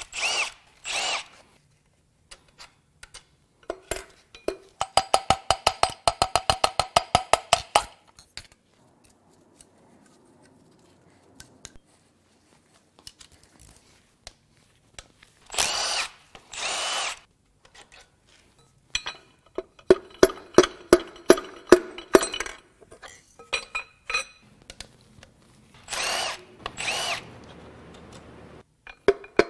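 A cordless power tool zips in pairs of short whining runs on the connecting rod cap bolts of a Ford 4.0L SOHC V6. Between the runs come stretches of rapid, ringing metallic clicking as the bolts are loosened.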